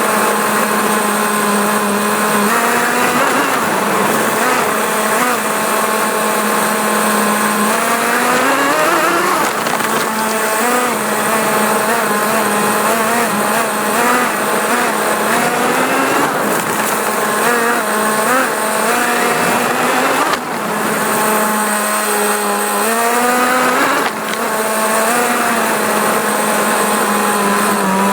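Radio-controlled car's motor whining loudly, heard from on board the car, its pitch rising and falling over and over as the throttle changes. The sound drops briefly twice near the end.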